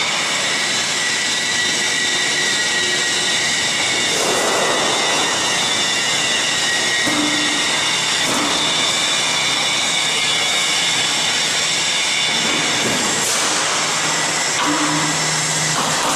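Roll forming machine running, a steady mechanical whine with several held tones over a rushing noise. A short surge of noise comes three times, about 4, 8 and 13 seconds in.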